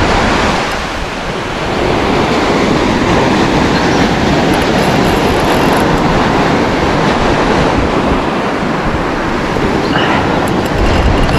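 Steady rushing noise of surf with wind buffeting the microphone, dipping briefly about a second in.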